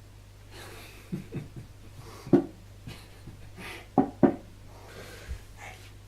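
A person breathing hard while exercising, with several short, sharp thumps; the loudest come about two and a half seconds in and twice around four seconds in. A steady low hum runs underneath.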